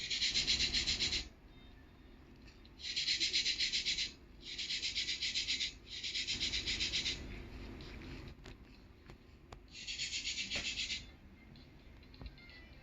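A cat's rough tongue rasping over its fur as it grooms itself, heard close up: five spells of rapid rhythmic licking strokes, each about a second long, with short pauses between.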